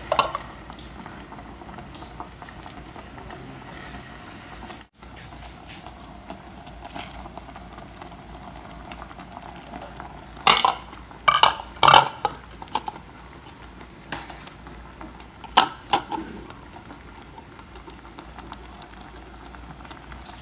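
A stainless steel pot of jute leaves (saluyot) simmering on a gas stove, with a steady bubbling hiss. About halfway through, a quick run of clatters and knocks from a dish against the pot, and a few seconds later another sharp knock, as ingredients go in.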